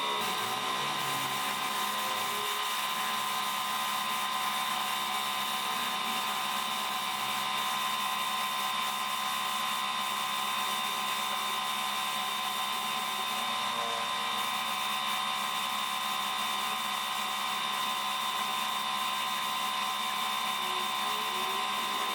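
A small electric motor running steadily at constant speed, with a high whine over a hiss, as from a handheld power tool.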